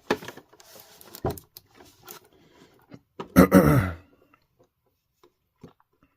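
Handling of a boxed action figure: scattered knocks, clicks and rubs of cardboard and plastic packaging, with a short wordless vocal sound falling in pitch, the loudest thing here, about three and a half seconds in. The rest is quiet but for a few faint taps.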